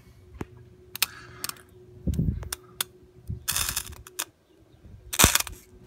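Scattered light clicks and knocks of a stainless steel bowl and the camera being handled, with two short hissing rushes about three and a half and five seconds in, over a faint steady hum.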